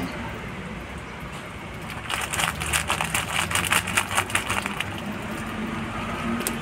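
Catfish fingerlings in a bucket snapping at floating feed pellets at the water surface, making a quick run of small splashes and pops about two seconds in that lasts a couple of seconds. A low steady hum runs underneath.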